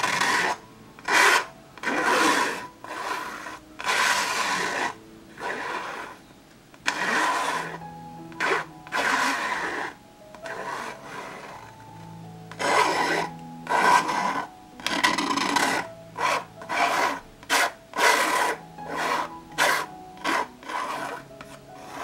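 Metal palette knife scraping thick acrylic paint across a stretched canvas in a run of separate rasping strokes, roughly one a second, growing shorter and quicker in the second half. Soft background music plays underneath.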